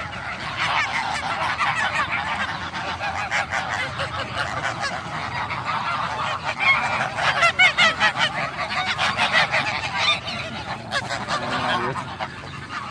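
A flock of domestic geese honking without pause, many calls overlapping, as they crowd in to be hand-fed bread. The honking is loudest about halfway through.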